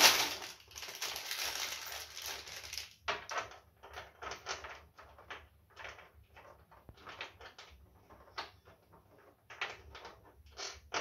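A clear plastic bag of TV-mount screws crinkling as a hand rummages in it, then a string of short crinkles and small clicks as screws are picked out and handled.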